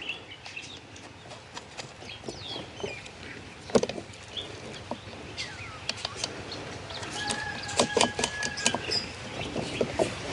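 Chickens clucking and small birds chirping, with scattered light clicks and one sharper knock about four seconds in.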